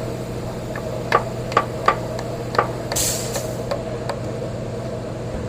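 Four or five sharp knocks, like tools striking metal, then a short hiss about three seconds in, over a steady hum.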